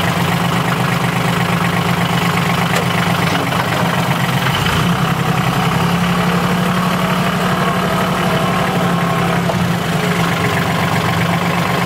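Snowplow tractor engine idling steadily.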